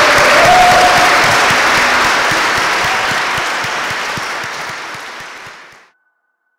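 Church congregation applauding, the applause slowly fading and then cutting off suddenly about six seconds in.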